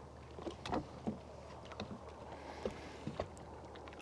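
Water lapping against a fishing boat's hull, with scattered soft ticks and knocks at irregular moments over a faint, steady low hum.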